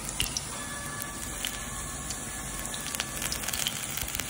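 Besan-battered spinach leaf (palak pakoda) deep-frying in hot oil: a steady sizzle with many small crackling pops, which come more often in the second half.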